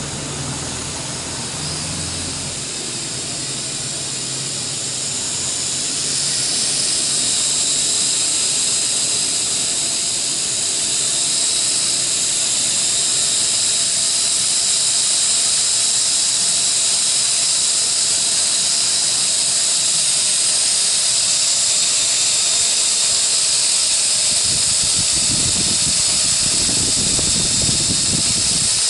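Toy RC quadcopter's small electric motors and propellers running in flight with a steady high-pitched whine. The whine grows louder over the first several seconds as the quadcopter comes closer, then holds while it hovers, with some low rumbling near the end.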